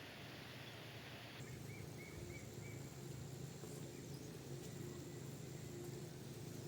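Faint outdoor rural ambience: a steady low hum and a thin, steady high tone, with four quick faint chirps about two seconds in.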